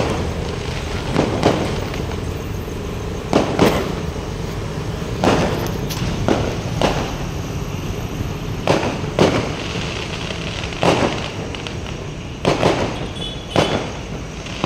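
Aerial fireworks bursting: about fifteen sharp bangs at irregular intervals, some in quick pairs, over a steady background noise.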